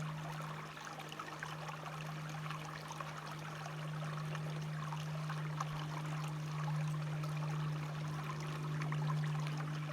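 Small stream of water trickling and splashing steadily, with a constant low hum underneath.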